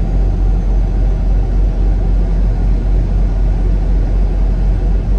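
Semi truck under way on the highway: a steady low rumble of its diesel engine mixed with road noise.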